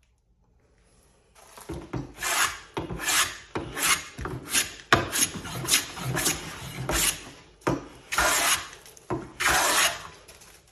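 Metal hand plane taking shavings off a pale wooden stool leg: about a dozen quick, hissing push strokes starting about a second and a half in, smoothing the tapered leg after drawknife work.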